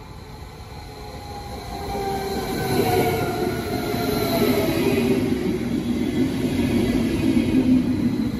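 BLS RABe 515 double-deck electric multiple unit (Stadler KISS) arriving along the platform. Its electric drive whines and the whine falls slowly in pitch. The wheel and rail rumble grows louder over the first few seconds as the train draws alongside, then holds steady.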